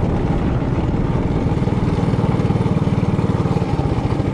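Trailmaster Hurricane 200X mini bike's single-cylinder four-stroke engine running steadily under way, its firing pulses close and even.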